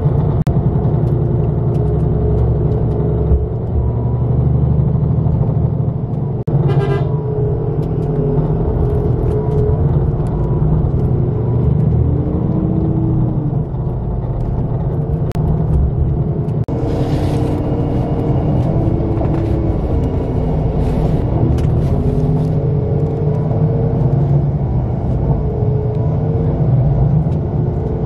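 Coach bus driving on the road, heard from inside: a steady engine and road rumble, with a brief hiss a little past halfway.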